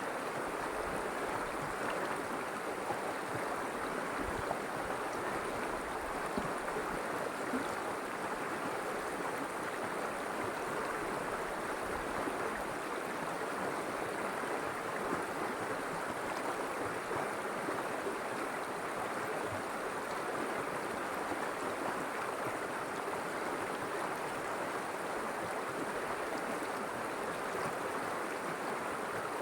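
River water flowing and rushing steadily over rocks.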